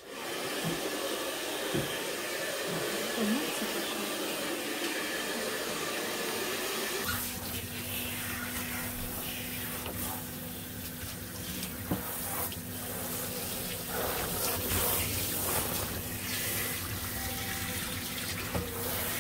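Water running steadily from a tap or shower hose in a grooming tub. About seven seconds in, a steady low motor hum joins it.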